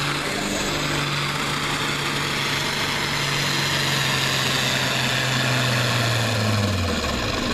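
International Harvester farm stock tractor's turbocharged diesel engine pulling the sled under heavy load. Its steady drone sinks slowly in pitch as the engine lugs down, then drops off about seven seconds in.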